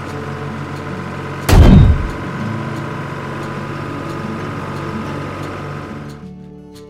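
Cartoon tractor engine sound effect running steadily, with one loud, heavy thump about a second and a half in. The engine fades near the end as music comes in.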